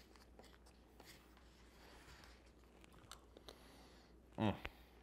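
Quiet eating: a metal spoon scraping and clicking lightly against a ceramic plate, then a short voiced sound from the eater about four and a half seconds in.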